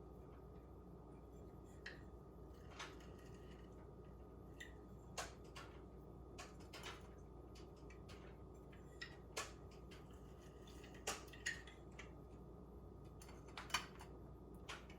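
Scattered light clicks and taps of kitchen utensils and containers being handled, about a dozen of them at uneven intervals, over a faint steady hum.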